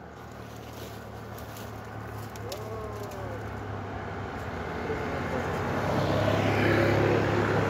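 A motorcycle approaches and passes close by, its engine hum growing steadily louder over several seconds and peaking near the end, with more road traffic coming up behind it.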